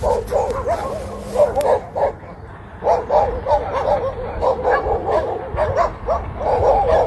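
Dogs yipping and barking in quick, high-pitched cries, with a short pause about two seconds in.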